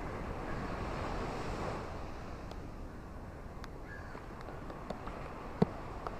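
Steady wash of surf and rain on a beach, with scattered ticks of raindrops and one sharp, louder tap near the end. A faint bird call or two sounds through it.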